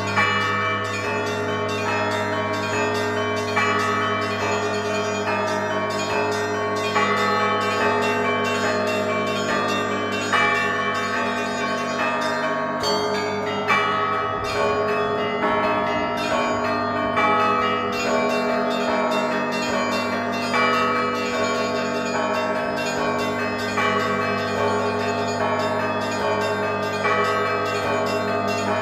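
Orthodox monastery bells pealing: many bells ringing together without a break. A deep, steady hum from a large bell sits under quick, repeated strikes of smaller bells.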